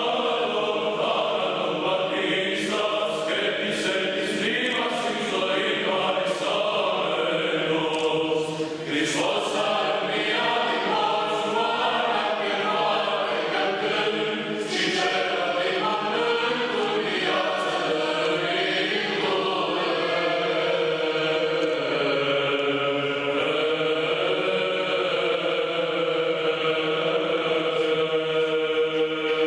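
Orthodox church chant sung by a choir: voices move through a slow melody over a steady held note, without pause.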